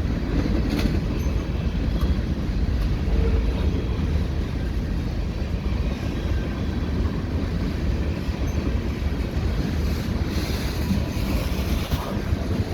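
Freight cars of a CN train rolling past, a steady low rumble of steel wheels on rail, with a brief rise in higher hiss about ten seconds in.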